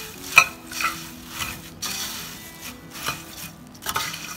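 Metal spoon stirring and tossing dry puffed rice in a stainless steel pot: the rice rustles and the spoon scrapes and clinks against the pot several times, the sharpest clink about half a second in.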